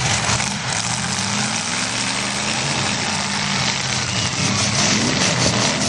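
Demolition derby cars' engines running, their pitch rising and falling as they rev, over a steady hiss.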